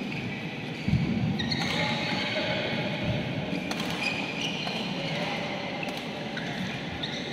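Badminton rally: rackets strike the shuttlecock back and forth, and players' shoes squeak sharply on the synthetic court mat. Footfalls thud about a second in and again near three seconds.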